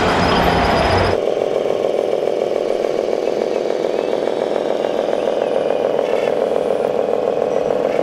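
1/14-scale RC construction model running: a fuller, rumbling mechanical noise cuts off abruptly about a second in, leaving a steady drone for the rest.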